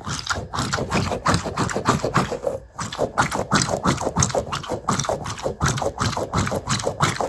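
A glitter dumpling squishy being squeezed and kneaded by hand close to the microphone: a run of quick, irregular squelching and sticky crackling sounds, several a second.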